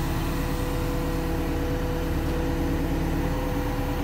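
Heavy-equipment diesel engine running steadily at idle, a constant low drone.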